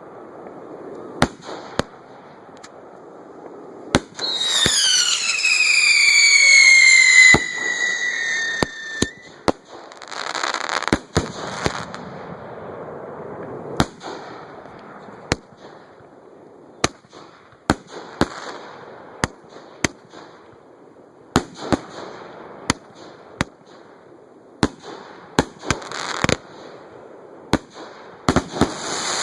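Fireworks display going off at close range: a string of sharp bangs from shells launching and bursting, with hissing crackle between them. About four seconds in, a loud whistle falls steadily in pitch for about five seconds.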